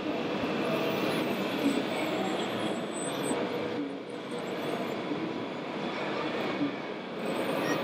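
Steady, even background din of a busy exhibition hall, a continuous mix of crowd noise and machinery with no single sound standing out.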